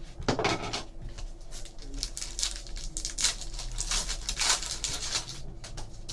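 Trading cards being flipped and slid against one another in the hands, a quick run of papery rustles and flicks as a pack is sorted through.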